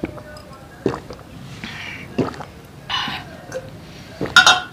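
Two people gulping water from glasses, a swallow about every second and a half, with breathy exhales between them. A louder knock comes near the end.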